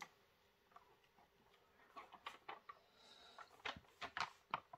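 Faint, scattered clicks and crinkles of bubble wrap and cardboard packaging being handled, mostly in the second half.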